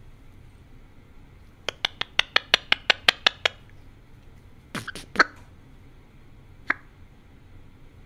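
Male eclectus parrot making sharp clicks right at a microphone: a quick run of about a dozen clicks at roughly six a second starting about two seconds in, a few more clicks a little later, and one last single click.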